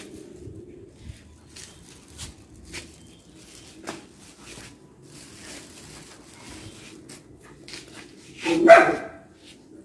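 A dog barks once, loudly, near the end, with faint scattered clicks and rustles before it.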